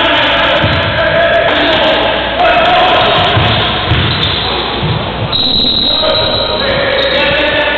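A basketball being dribbled on a gym floor: repeated low thuds about every half second to a second, over a background of voices and music.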